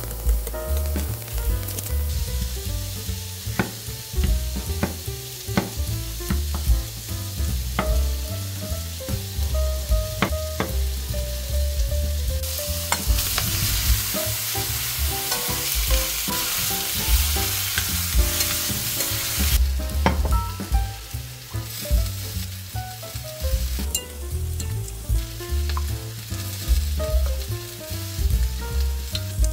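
Pork sizzling as it browns in a stainless steel pan, with tongs clicking against the metal as the pieces are turned. The sizzle grows much louder for several seconds near the middle, as cubed potatoes go into the pan with the meat.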